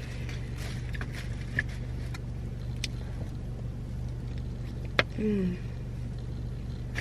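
Car engine idling, a steady low hum heard from inside the cabin, with a few faint clicks and one short falling hum from a voice about five seconds in.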